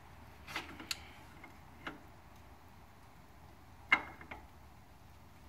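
3/4-inch drive ratchet clicking as it tightens the inner wheel-bearing adjusting nut on a truck hub spindle, drawn up as tight as it will go to seat the bearings. A few sharp, separate metallic clicks, the loudest about four seconds in.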